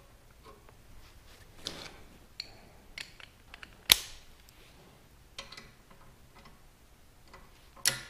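Hand-tool handling: a few scattered clicks and light metallic taps from a socket wrench and extension, with one sharp click about four seconds in.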